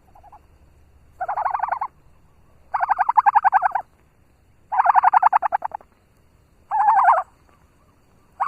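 A bird gives a loud, rapid rattling call five times, about every two seconds, each call half a second to a second long; the last starts just at the end.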